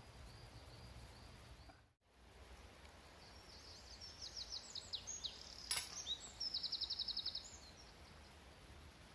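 A songbird singing a phrase of quick high notes that ends in a fast trill, with one sharp plastic click about halfway through as a blue plastic egg carrier is snapped open. A low steady rumble lies underneath.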